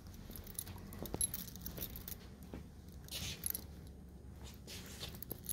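Faint footsteps and light jingling with scattered small clicks as a person walks across a tiled classroom floor.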